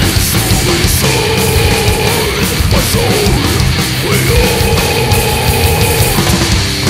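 Death metal music: a loud, dense full-band sound with two long held notes standing out over it, the first about a second in and the second from about three and a half seconds in.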